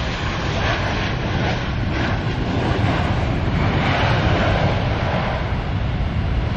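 Boeing 737 airliner's jet engines on the landing roll just after touchdown: a steady, loud rumble and rush that swells a little midway, with wind buffeting the microphone.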